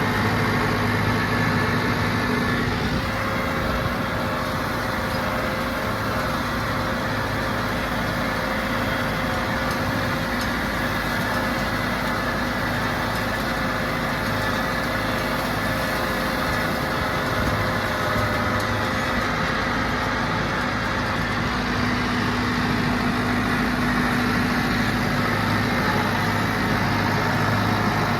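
Farm tractor engine running steadily at an even speed while pulling a hay rake, with no change in load.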